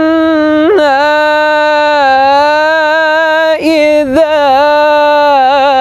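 Man's solo Quran recitation in the melodic mujawwad style, in maqam Kurd, holding a long drawn-out vowel on a high, steady pitch. It breaks briefly just under a second in, wavers in ornaments about three and a half seconds in, and ends in quick trills.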